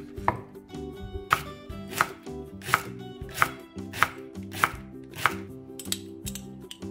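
Kitchen knife slicing a bundle of large green onion (daepa) into rings on a wooden cutting board: about eight even chops, roughly one and a half a second, each stroke knocking on the board. A few lighter clicks follow near the end.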